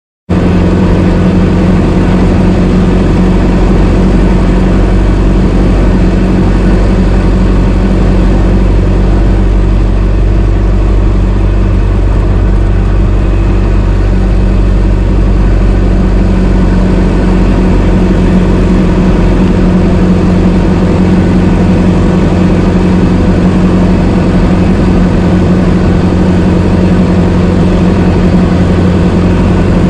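Old car's engine idling steadily, its note holding the same pitch throughout.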